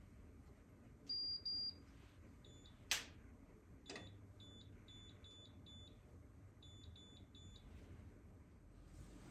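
Electronic beeping: a loud high double beep about a second in, two sharp clicks, then a run of faint, very short high beeps.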